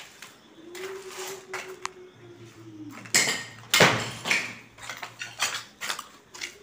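A low, held call in the first half. Then, from about three seconds in, footsteps crunching and clattering over broken tile shards and rubble, in a string of sharp, uneven steps.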